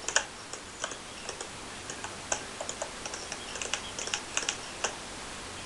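Someone typing on a computer keyboard: irregular key clicks, single taps and short quick runs.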